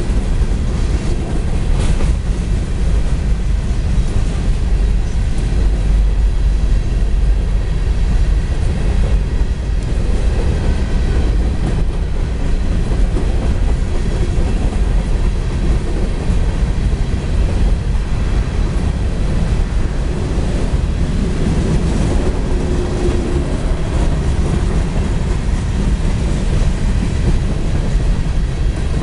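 CSX coal train's freight cars rolling steadily past through a grade crossing: a loud, continuous rumble of steel wheels on the rails.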